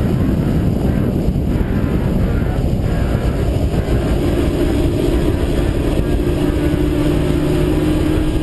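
Twin Mercury 225 OptiMax outboard motors running at speed, with wind buffeting the microphone and hull and water noise under a steady engine drone that becomes clearer about halfway through.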